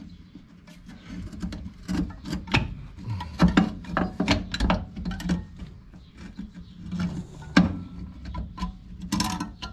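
Irregular metallic clicks and clinks of a hold-down spring tool pressing and twisting a drum brake shoe's hold-down spring and cup onto its pin on the backing plate.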